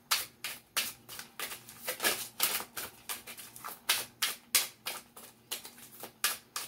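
Tarot cards being shuffled by hand: a steady run of crisp card slaps, about three to four a second.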